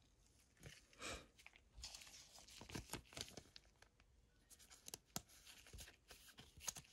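Faint, intermittent crinkling and tearing of a plastic trading-card pack wrapper as a pack is ripped open and the cards are slid out.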